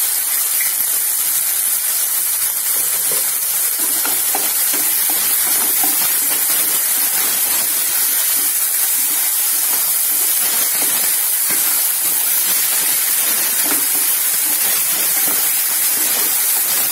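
Boiled chana dal sizzling in hot coconut-oil tempering in a nonstick kadai as it is stirred: a steady hiss as the leftover cooking water boils off.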